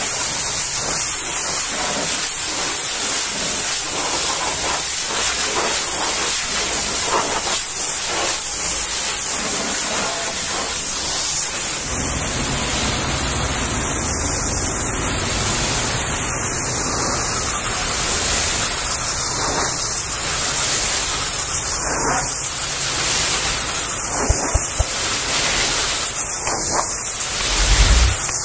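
High-pressure washer jet blasting road grime off a truck, a loud continuous hiss. About twelve seconds in, a low rumble joins it. After that the hiss rises and dips every two seconds or so as the jet sweeps back and forth across the trailer doors, with a few short low knocks near the end.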